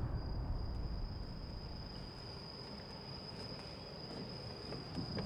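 Insects singing at night in one steady, unbroken high-pitched trill over a low outdoor rumble, with a few faint footsteps near the end.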